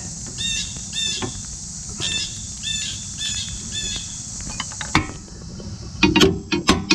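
A bird giving short, repeated chirps about every half second over a steady high hiss. Near the end a quick run of sharp clicks starts.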